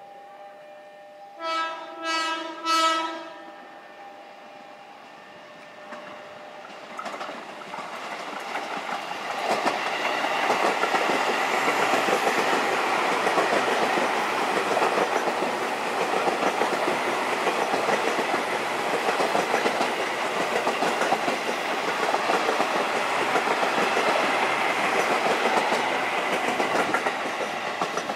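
KRL Commuterline electric train sounding three short horn blasts about two seconds in, then running past: its noise builds from about seven seconds in and stays loud until near the end.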